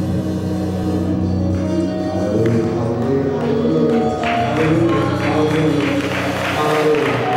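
Worship music with held low bass notes and a melody over them; about four seconds in, a brighter rhythmic layer joins.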